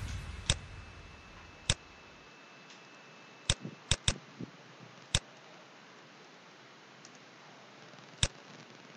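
Computer mouse clicking: about seven or eight sharp single clicks at uneven intervals, a few in quick succession, over a faint steady hiss.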